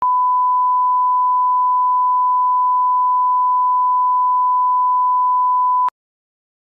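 A steady, pure electronic test tone, the reference tone that goes with TV colour bars, held for about six seconds and then cut off abruptly.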